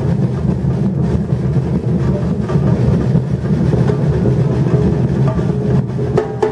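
Batucada drum ensemble playing a fast, dense groove dominated by low drums. Near the end, sharper higher-pitched strokes join in.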